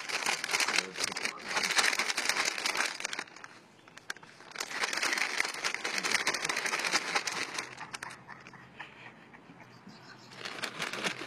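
Crackling, rustling noise on a phone microphone, coming in three stretches with quieter gaps between.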